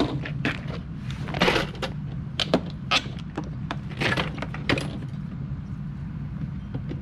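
Knocks, clicks and rattles of plastic parts being handled at the 10-litre tank of a Koshin EP-10P engine power sprayer while it is readied for filling with chemical solution, about six in all, two of them longer rattles. A steady low hum runs underneath.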